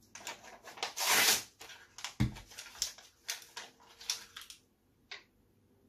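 Printed paper sheet being bitten and torn with the teeth: a loud rip about a second in, a low thump, then a run of short crinkling and crackling sounds as the torn paper is pushed into the mouth and chewed. The sounds stop about a second before the end, after one last click.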